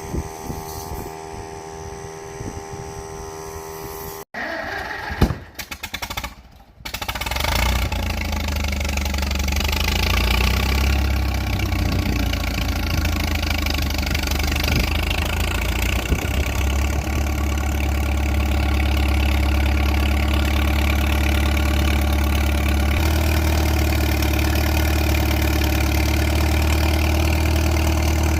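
1945 Farmall M tractor's four-cylinder engine coming up to speed about seven seconds in, then running steadily at idle with a strong low note.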